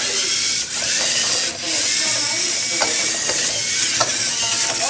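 Lego Mindstorms EV3 robots' motors and plastic gear trains whirring steadily as two sumo robots drive and push against each other, with two brief dips in the whirr in the first second and a half.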